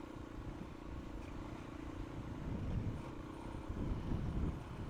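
Motorcycle engine running steadily under a low rumble, with the rumble growing louder around the middle and again near the end.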